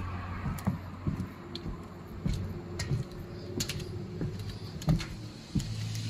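Scattered light clicks and knocks at irregular intervals over a low steady hum.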